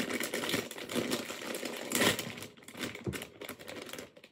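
A foil-lined Lay's crisp bag crinkling and crackling as it is handled and torn open: a dense run of crackles with a louder one about two seconds in, quieter toward the end.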